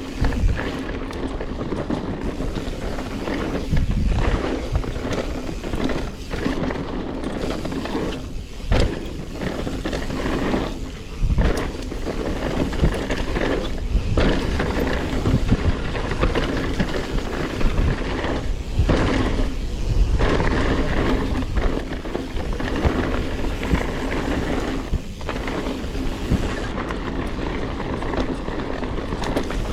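Specialized Stumpjumper Evo Alloy mountain bike being ridden along a dirt singletrack: steady tyre and wind noise, broken by frequent sharp knocks and rattles as it rolls over roots and rocks.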